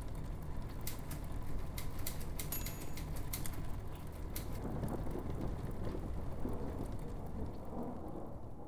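Steady rain falling, with a low rumble of thunder underneath and scattered sharp crackling drops in the first few seconds.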